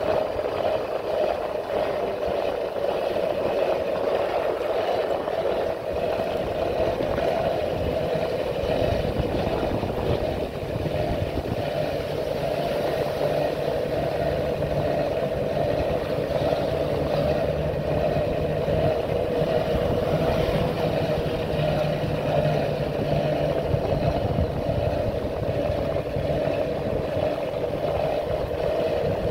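Motorcycle engine running steadily while riding along, with a constant drone. A lower hum joins about nine seconds in.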